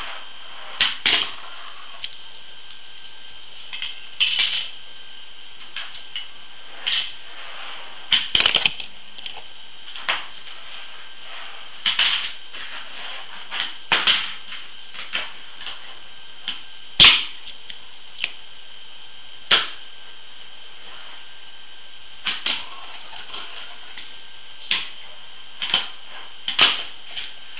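A Tech Deck fingerboard clacking on a wooden tabletop and a metal rail as it is flicked, landed and slid. The clicks and clatters come at irregular intervals, singly and in short bursts, with the loudest clack about two-thirds of the way through.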